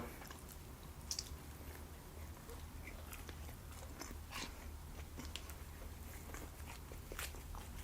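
A person chewing food close to a microphone: soft chewing with small scattered mouth clicks.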